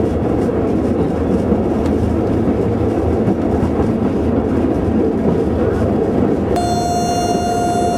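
Vintage diesel railcar running along the track, heard from the driver's cab: a steady engine drone and rail rumble. About six and a half seconds in, a steady high tone sets in suddenly and holds.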